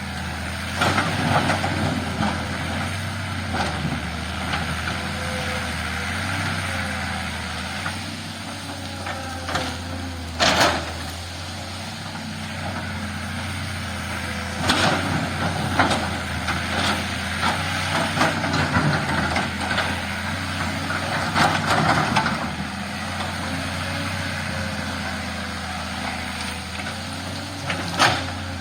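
Diesel engine of a heavy earthmoving machine running steadily under work, with repeated surges of noise and two sharp knocks, one about ten seconds in and one near the end.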